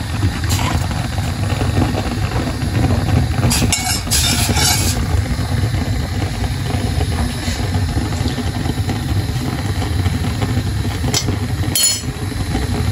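Steady low motor-like hum with a rumble underneath, with a few short clinks and clatters about four seconds in and again near the end.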